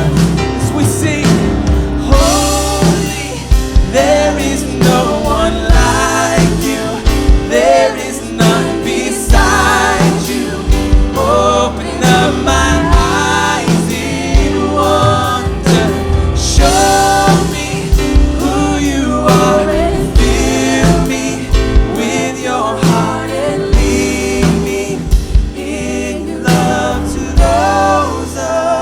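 Live worship band playing a slow song: sung vocals over piano, bass guitar and drum kit, with steady drum hits.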